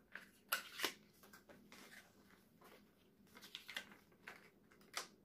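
Faint rustling and light taps of paper and product packaging being handled, with a few short sharp clicks spread through.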